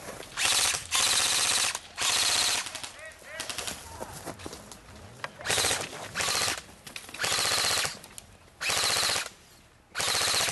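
Airsoft rifles firing on full auto in about eight short bursts of rapid shots, three close together at first, then a pause, then five more.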